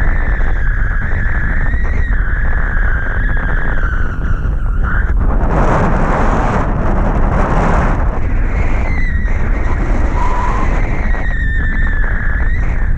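Wind buffeting an action camera's microphone during a tandem paraglider flight: a loud, constant low rumble with a steady high whistling tone over it, and a stronger rush of wind from about five to eight seconds in.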